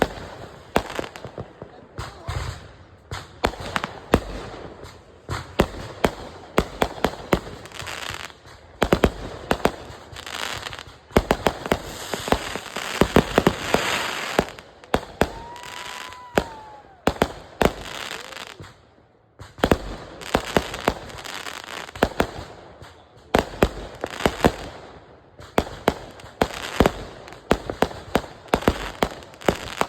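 Consumer fireworks going off in quick succession: many sharp bangs and crackles, densest a little before halfway. Just after halfway a short whistle rises and falls. A brief lull comes about two-thirds of the way in.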